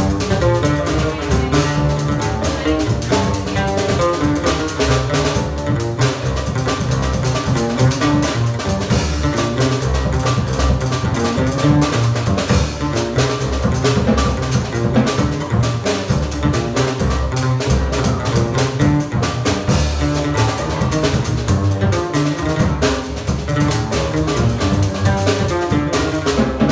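Live small-group jazz: an oud playing a melodic line over upright double bass and a drum kit with cymbals, without a break.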